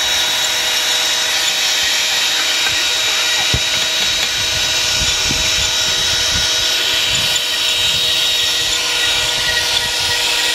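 Electric drill running steadily, turning a cast-iron hand grain mill that is grinding corn kernels: a constant motor whine with irregular low knocking and crunching from the mill.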